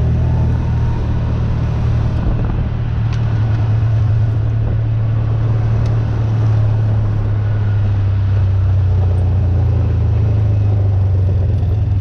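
Tractor engine running steadily at an even speed, a constant low hum with no change in pitch.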